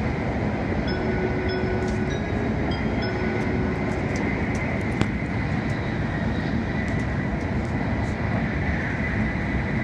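Steady running noise of a Tokaido Shinkansen train at speed, heard from inside the passenger car: a dense rumble and rush. A few faint short tones sound in the first few seconds, and there is a single sharp click about five seconds in.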